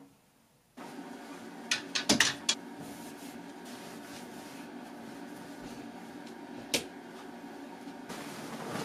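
Steady low hum with a handful of sharp knocks and clicks: a quick cluster about two seconds in and a single one near seven seconds.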